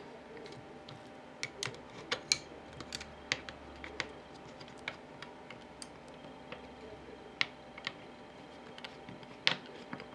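Irregular light clicks and taps of a screwdriver turning small slotted screws into a laminated steel stator frame, several quick ticks with pauses between them.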